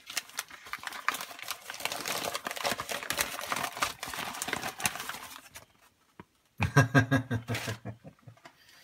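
Paper crinkling and rustling, with many small crackles, as a mug is unwrapped from newspaper and advertising-flyer paper; the rustling stops about two-thirds of the way through. Shortly after, a brief, loud, voice-like sound.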